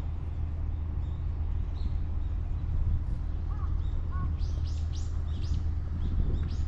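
Small birds chirping: a quick run of short, high, falling chirps about four and a half seconds in, another near the end, and a few fainter calls before them. Underneath is a steady low rumble.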